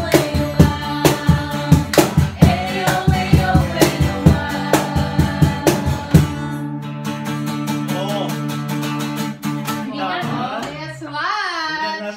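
A group singing along to a strummed acoustic guitar, with hand claps keeping a steady beat. About six seconds in, the clapping and strumming stop and a last chord rings on under held voices as the song ends.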